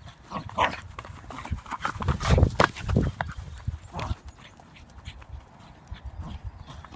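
Irregular crunching steps and scuffs on frost-covered grass as a terrier noses a football along and the ground crackles underfoot, loudest about two to three seconds in.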